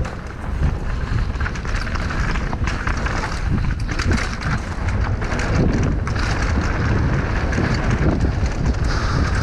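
Wind buffeting a helmet-mounted camera's microphone as a mountain bike descends a dirt trail at speed, with steady rattling and frequent sharp knocks from the bike jolting over bumps and roots.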